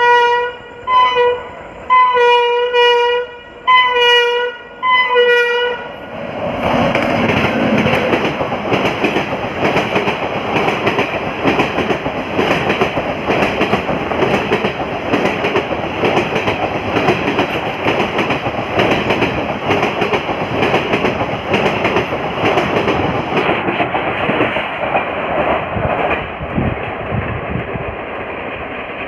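WAP-7 electric locomotive's horn sounding a series of short and longer blasts for about six seconds. The express then runs through at speed, a loud rush of wheels and coaches with rail clatter that eases off near the end.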